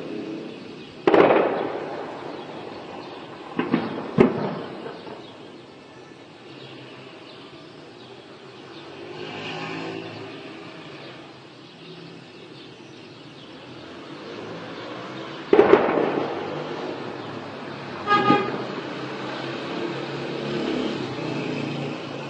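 Four sudden heavy bangs, each trailing off in a rumbling echo: one about a second in, two close together around four seconds, and one past the middle. These are shells or rockets landing on the town. A short car-horn toot sounds near 18 s, over a steady low background.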